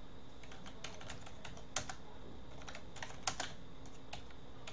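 Computer keyboard typing: a run of irregular key clicks, with two louder strokes about two and three and a half seconds in.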